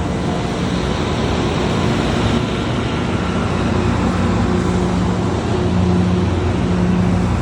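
Loram rail grinder's diesel engines running steadily under load as the train moves off, with a low engine drone and a broad mechanical noise.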